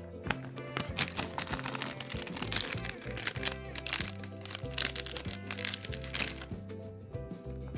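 Handmade paper blind bag being handled and opened: crinkling and crackling paper, thickest in the middle and thinning near the end, over steady background music.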